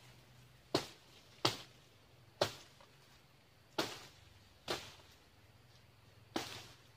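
Machete hacking at young oil palm fronds: six sharp chops at uneven intervals, each fading quickly.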